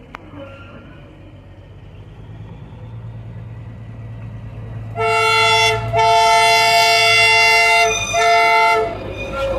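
Darjeeling Himalayan Railway toy train approaching, its low running rumble growing steadily louder. About five seconds in it sounds its horn in three blasts, a short one, a long one, then a short one.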